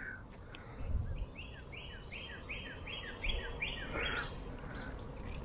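A songbird singing a quick run of about eight repeated two-part notes, roughly three a second, starting about a second in and stopping near the end, over a steady low background noise.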